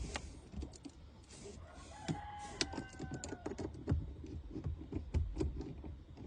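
Irregular light clicks and taps of screws and plastic parts as a car's air-conditioning blower fan is screwed back into place. A faint drawn-out tone sounds for about a second, starting about two seconds in.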